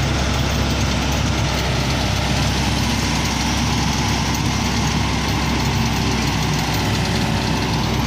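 Diesel engine of a Hitachi tracked excavator running steadily while the machine levers itself up onto a logging truck with its boom.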